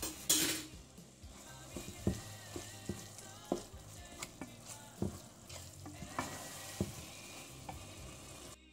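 Minced beef with tomato paste frying in a pot, sizzling steadily while a spoon stirs it, with repeated knocks and scrapes of the spoon against the pan. A brief louder hiss comes just after the start.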